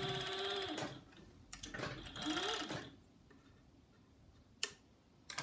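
Overlock machine (serger), MO-6700 series, stitching in short runs: it runs and stops about a second in, then runs again briefly with its pitch rising as it speeds up. A sharp click near the end.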